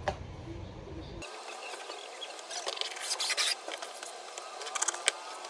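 Fabric and a stiff dark sheet being slid and handled on a cutting mat: bursts of rustling and scraping about halfway through and again near the end, with a few light knocks.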